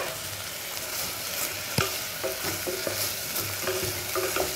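Broccoli, potato and onion frying in butter in a pressure pan, stirred and scraped with a wooden spatula, with a sharp knock about two seconds in.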